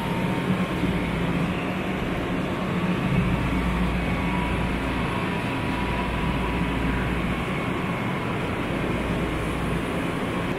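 Steady hum of electric commuter trains standing at an underground station platform, with a faint high tone and a deep rumble that grows stronger through the middle.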